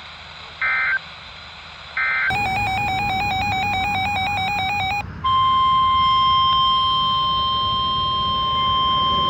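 Two short NOAA Weather Radio SAME digital data bursts, then about three seconds of a warbling two-pitch electronic alarm. From about five seconds in comes the steady single-pitch 1050 Hz NOAA Weather Radio warning alarm tone, which signals that a new warning message is about to be read.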